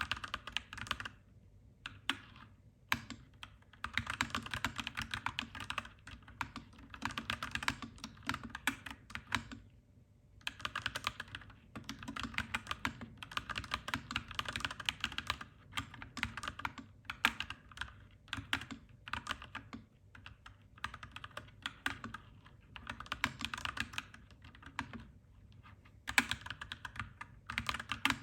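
Clacky mechanical keyboard being typed on in fast runs of keystrokes, broken by short pauses.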